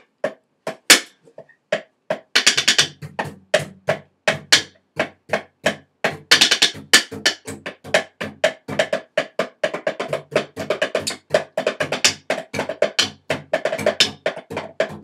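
Sticks drumming on a cardboard box: a quick, uneven run of sharp taps. A few scattered taps come first, and the drumming thickens about two seconds in.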